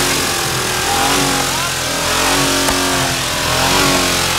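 Ford F-150 pickup engine running with the hood open, its pitch rising and falling a few times as it is revved.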